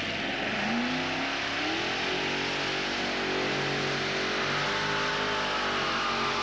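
Modified pulling tractor's multiple supercharged engines revving up as it launches, rising in pitch over the first two seconds, then held at high revs under load while it drags the sled.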